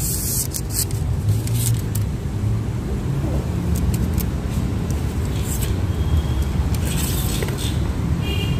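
Hyundai i10 Nios engine idling steadily with the bonnet open, with light clicks and scrapes as the oil dipstick is handled and pushed back into its tube.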